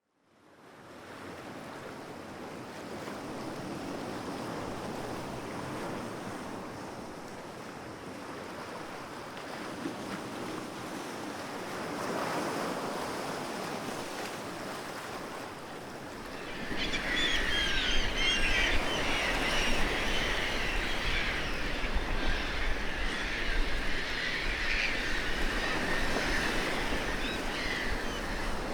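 Sea surf washing steadily, fading in at the start. From a little past halfway it grows louder, with high warbling sounds and a low rumble of wind joining in.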